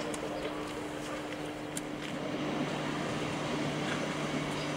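Distant ÖBB diesel locomotive running at a steady drone while shunting, its engine hum held on one low pitch with a second, lower tone joining about a second in.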